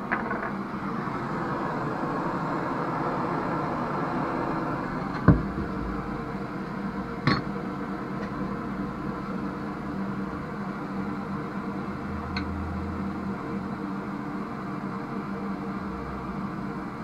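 Butane blowtorch burning with a steady hiss as copper pipe is heated for soldering. Two sharp knocks about two seconds apart, around five and seven seconds in, stand out above it.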